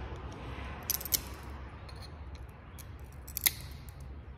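Grozing pliers nipping small chips off the edge of a cut circle of black glass, cleaning up the rough tags left after breaking it out: a few sharp snaps, two about a second in and another after about three and a half seconds.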